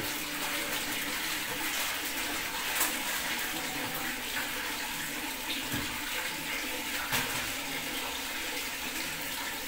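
Water running steadily from a tap into the tub of a top-loading washing machine as it fills for a wash.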